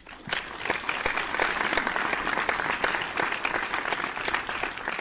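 Applause from a group, many hands clapping, setting in quickly and holding steady.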